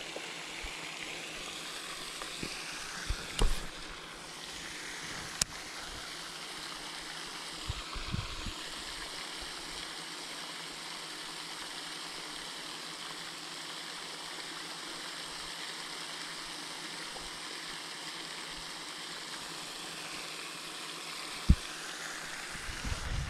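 Steady hiss of outdoor background noise, with a few brief light knocks scattered through it.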